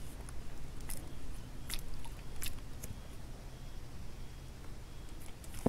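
Spinning reel being wound by hand on a slow retrieve: a few faint, short clicks and ticks in the first three seconds over a low steady rumble.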